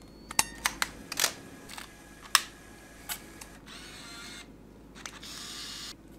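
Camera shutter sounds: about ten sharp clicks at irregular intervals, with two short whirring stretches in the second half.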